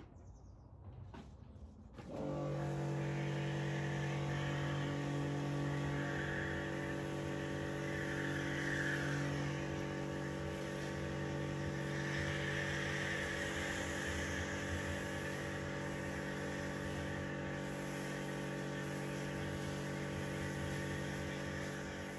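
Kärcher K4 electric pressure washer running, its motor and pump giving a steady hum under the hiss of the spray jet; it starts up about two seconds in and runs on without a break.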